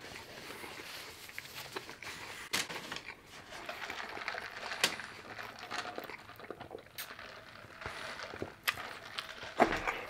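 Close-miked mouth sounds: chewing a last mouthful, and sipping a soft drink through a straw, with several sharp clicks and smacks scattered through.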